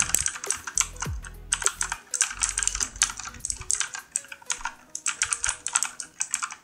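Fast typing on a 1STPLAYER MK3 Firerose mechanical keyboard with clicky, Cherry MX Blue-like switches: a rapid, loud run of sharp key clicks with a couple of brief pauses.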